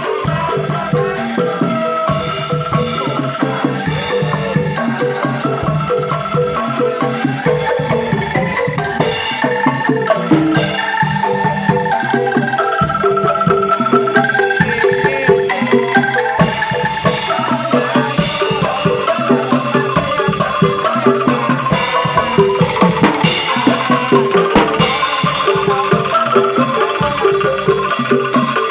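Angklung ensemble playing a tune: tuned bamboo tubes shaken into rapid rattling notes, over a steady drum beat.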